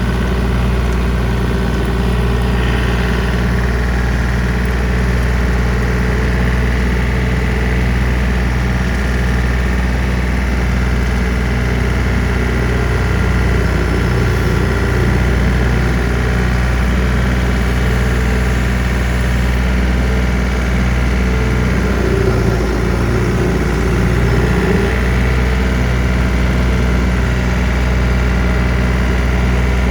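John Deere 3025D compact tractor's three-cylinder diesel running steadily under load, driving a brush hog rotary cutter in first gear low range.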